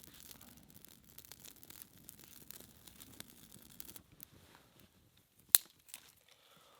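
Rustling and scraping of something being handled, with many small clicks, then one sharp snap about five and a half seconds in, followed by a smaller one.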